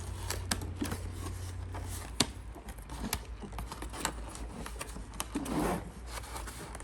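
Scattered light clicks and taps of plastic Play-Doh playset pieces being handled.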